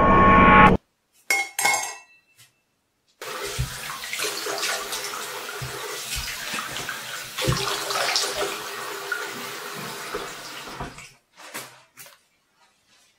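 Tap water running into a bathroom sink, with splashing as a man rinses his face over it. It starts about three seconds in and stops shortly before the end, with a few light clicks before and after. A loud music chord cuts off just under a second in.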